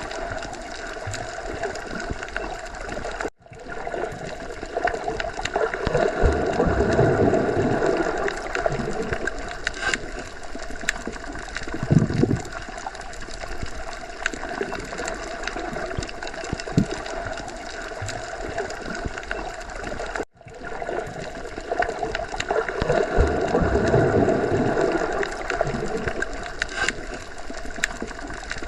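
Underwater sea ambience: a steady, muffled rush of water that swells louder twice, slowly, and cuts out for a split second twice.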